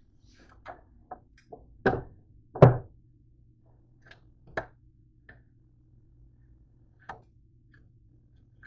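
George Foreman grill's lid opened with two loud clunks about two seconds in. Lighter taps and clicks follow as the grilled bread slices are lifted and set back on the ridged plates.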